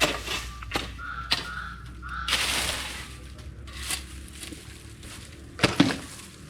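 Dry cowpea stalks and brush being gathered and handled: a run of separate rustling swishes and crunches of dry vegetation, the loudest near the end.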